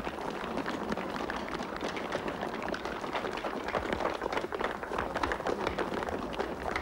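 Many people running on cobblestones: a dense, irregular clatter of hurried footsteps.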